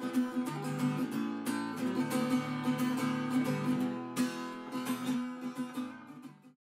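Background music: strummed and plucked acoustic guitar, fading out near the end.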